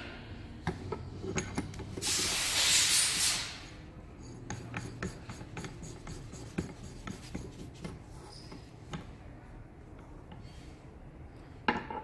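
Hands handling small parts at a workbench: a loud rustling rub about two seconds in that lasts a second and a half, then scattered light clicks and taps of small pieces being picked up and set down, with a sharper clink near the end.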